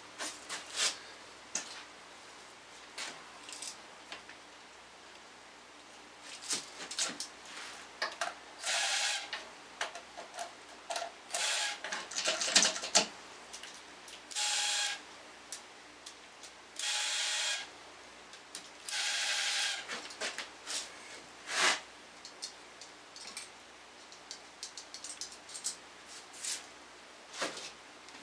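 Clicks and clanks of tools and chain against a bare engine, with about four short whirring runs of a small power tool, each lasting about a second.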